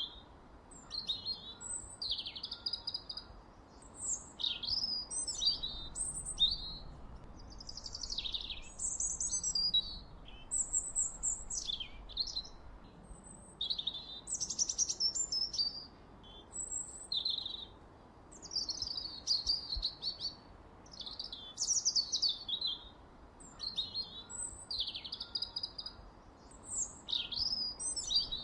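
Songbird chirping and twittering: quick, high-pitched chirps, sliding notes and trills in short phrases every second or so, over a faint steady hiss.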